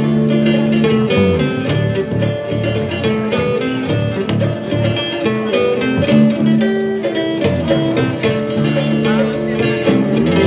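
Live street band playing an instrumental passage: keyboard and guitar sound held chords over a moving bass line, with a steady percussion beat.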